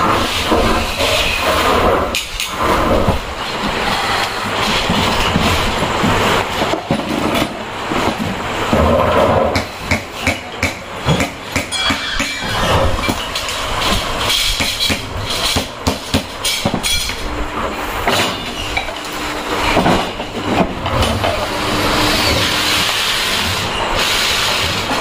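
Loud factory-floor noise: machinery running continuously with frequent metallic clattering and knocking, and a few brief steady hums in the later part.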